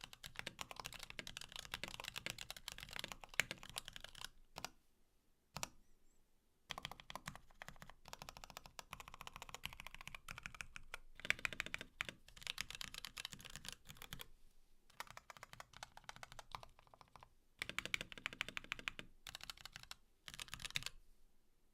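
Fast typing on a Klippe mechanical keyboard with lubed Kailh Box Black linear switches, a carbon fiber plate, a Sorbothane-damped case and blank POM Cherry-profile keycaps. Dense runs of keystrokes are broken by short pauses, the longest about five seconds in, and the typing stops near the end.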